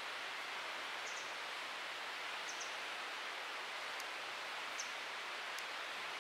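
Steady outdoor woodland background hiss, with a few faint short high chirps and a couple of light clicks.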